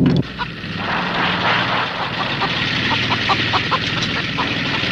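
Small gasoline engine droning steadily, most likely a chainsaw running, with a scatter of short sharp ticks over the drone.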